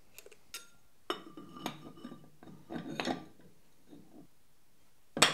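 Metal parts of a Procunier tapping head clinking, knocking and scraping as its housing halves are handled and fitted together. There are several clusters of knocks with a short metallic ring, and a sharp click near the end.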